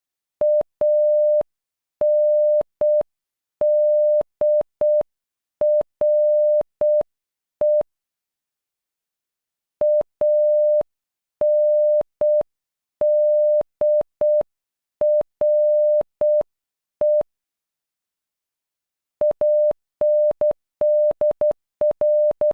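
Morse code beeps, one steady tone keyed in dots and dashes spelling ANDRE (.- -. -.. .-. .). It is sent slowly twice, then faster about three-quarters of the way through.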